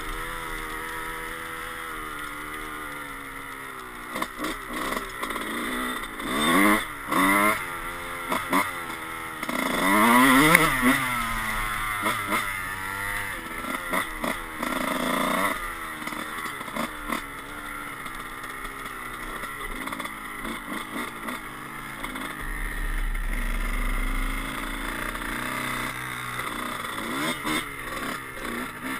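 Dirt bike engine under way, revving up and falling back again and again as the rider opens and closes the throttle and shifts, loudest in a hard rise about ten seconds in, then running more evenly.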